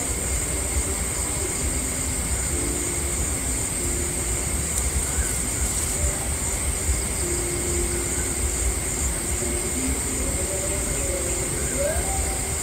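A steady low rumble with a continuous thin, high-pitched whine above it and a few faint short low notes scattered through.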